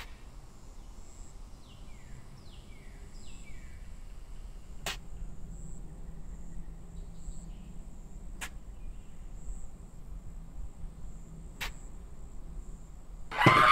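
Quiet summer ambience: a faint, steady, high pulsing insect buzz, with three short falling chirps early on. Three sharp single clicks come a few seconds apart, and just before the end a loud burst of rapid knocking strikes begins.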